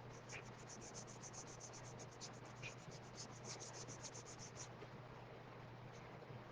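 Paint being scrubbed onto a wooden cutout in quick, faint, scratchy strokes, about eight a second, stopping about four and a half seconds in.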